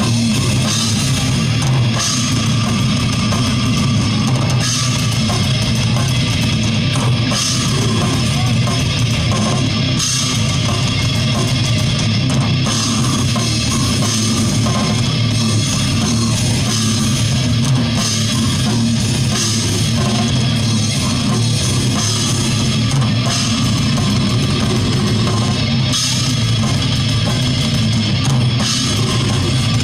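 Heavy metal band playing: electric guitar and drum kit, with a cymbal crash every two to three seconds.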